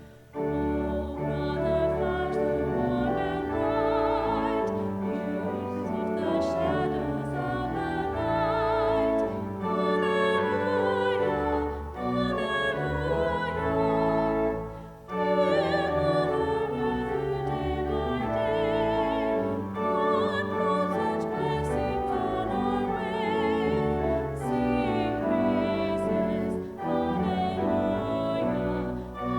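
Classical-style sacred music: singing with a strong vibrato over instrumental accompaniment, in long held phrases with a brief break about halfway through.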